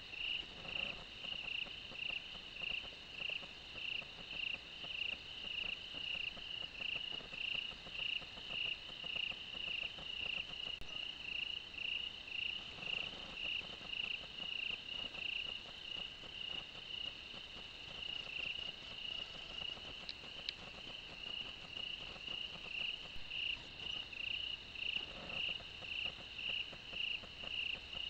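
Night insects chirping in an even rhythm, about two chirps a second, over a fainter steady trill.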